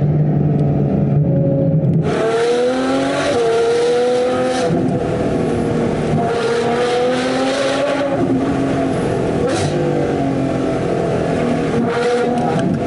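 Ferrari 812 Superfast's V12 with a Novitec straight-piped exhaust, running loud. It drones steadily at first. About two seconds in, the sound changes abruptly and turns brighter, and the pitch then rises and falls repeatedly with throttle and gear changes.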